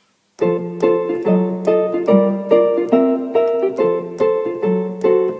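Yamaha Tyros 3 arranger keyboard playing its GM/XG Ukulele voice: plucked chords over lower bass notes, several notes a second, starting about half a second in.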